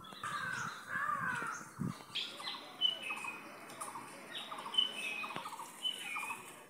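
Several birds calling at once: swooping calls at first, then repeated bursts of short notes and brief higher whistled notes.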